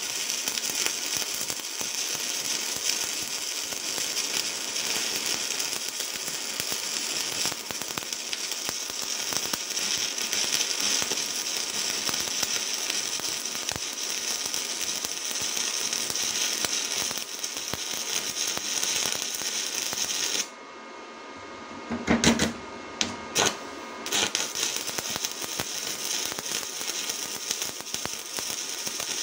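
Stick (MMA) welding arc of an Elektrolite inverter burning 3 mm UONI 13/55 electrodes at 160 A, a current the welder finds a bit too high: a steady loud crackle and sizzle. About two-thirds of the way through the arc goes out for a second or so, then restarts with a few sharp pops and carries on.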